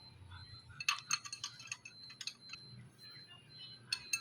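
Light metallic clinks and taps of small metal pieces being handled, a quick cluster about a second in and a couple more near the end, over a faint steady high-pitched tone.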